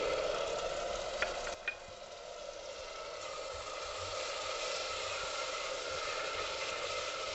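Puréed tomato sizzling in hot oil and spices in a pressure cooker. The sizzle is loudest at first and eases off, with two light clicks against the pot about a second and a half in, then settles to a steady sizzle as the mixture is stirred with a spatula.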